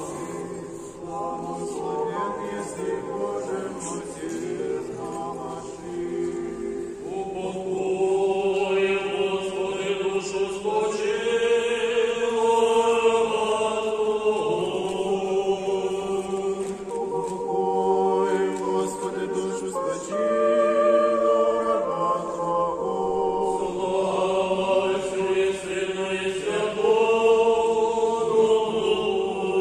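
Church choir singing panakhyda chant, the Eastern-rite memorial service for the dead, in slow chords held for several seconds.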